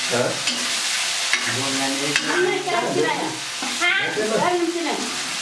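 Vegetables frying in a pan: a steady sizzling hiss, with stirring.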